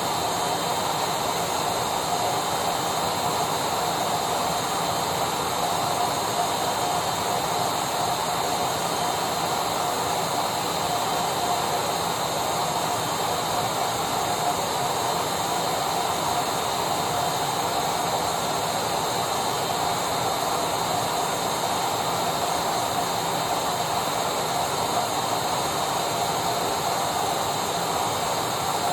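Electric vacuum cleaner motor running steadily: an even rushing hiss with a constant whine over it, unchanging throughout.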